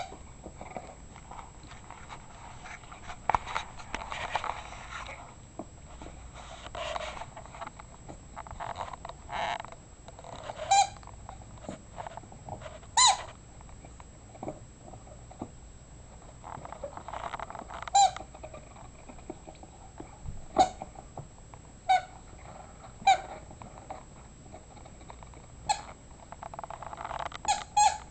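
A dog chewing a squeaky rubber chicken toy: short, sharp squeaks every few seconds as its jaws squeeze the toy, between stretches of softer gnawing and rustling.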